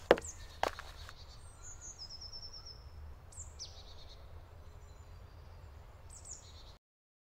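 A few footsteps about half a second apart, then wild birds singing in a forest: a fast run of high notes about two seconds in and short high falling calls around three and a half and six seconds, over a faint low rumble. The sound cuts off abruptly near the end.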